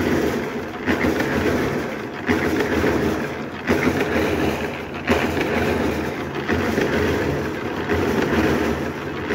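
Small portable drum concrete mixer running loudly, its motor and the tumbling load in the drum making a steady churning noise with a regular beat about every second and a half.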